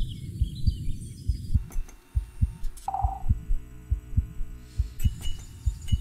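Heartbeat-like low thumps in a steady rhythm, the beat of a music track built from recorded sounds, with a short mid-pitched tone sounding about every three and a half seconds.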